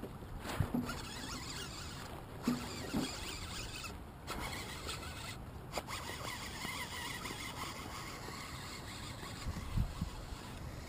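Fishing reel being cranked to retrieve line, a rapid zipping clicking, with a few short knocks from the tackle and boat.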